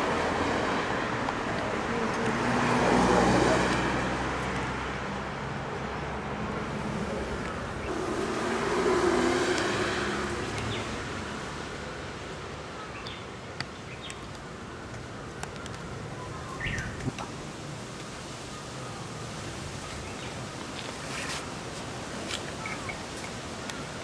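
Road traffic passing: two vehicles swell and fade, about three and nine seconds in, over a steady traffic hum. The second half is quieter, with a few faint short high-pitched sounds and ticks.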